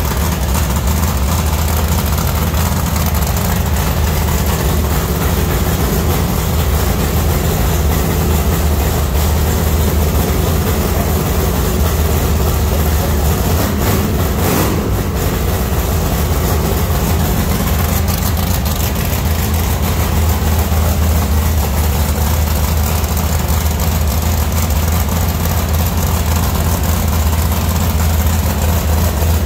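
Dodge Dart drag car's Mopar stroker engine idling steadily through a newly fitted straight-pipe race exhaust, with a deep tone.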